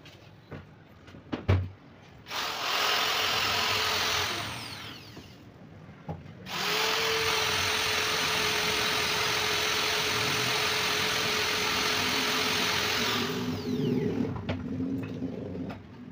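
Handheld corded electric drill boring through a sheet of glass: a short run of about two seconds, then a longer run of about seven seconds, each winding down with a falling whine when the trigger is let go. A sharp knock comes just before the first run, and scuffing and knocks follow the second.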